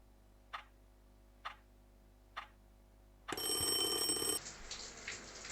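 Clock ticking about once a second, then an alarm clock suddenly rings loudly for about a second. The ringing cuts off into a steady hiss.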